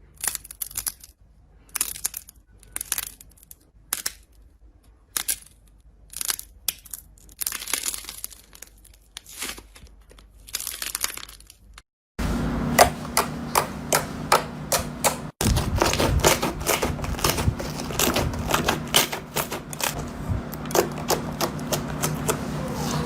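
Slime being squeezed and pressed by hand, giving bursts of crackling and popping. About halfway through it changes to a second slime clip with many quick sharp clicks and pops over a steady low hum.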